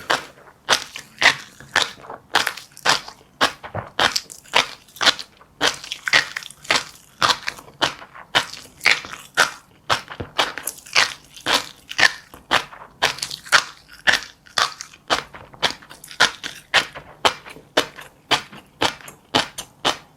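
Close-miked chewing: crunchy seeds cracked between the teeth in a steady run of sharp crunches, about two a second.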